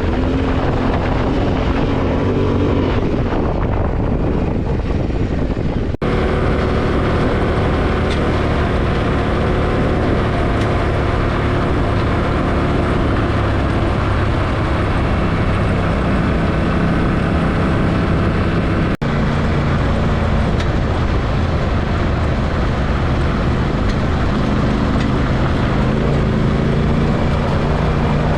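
Yamaha Ténéré 700 motorcycle's parallel-twin engine running steadily under way, its pitch shifting a little now and then. The sound breaks off for an instant twice, about six and nineteen seconds in, as one stretch of riding cuts to another.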